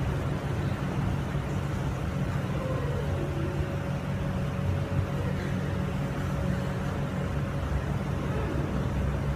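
Steady low rumble of background room noise with a faint, constant hum above it; no distinct events.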